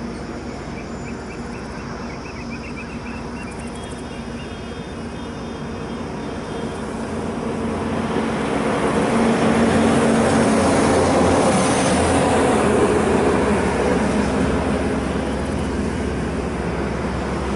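Rumble of a passing vehicle, swelling to its loudest about ten seconds in, then slowly fading.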